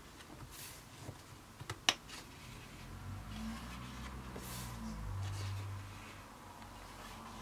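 Thick pages of a hardback Leuchtturm1917 sketchbook being turned and smoothed flat by hand: soft paper rustles, with one sharp snap just before two seconds in and a low hum through the middle.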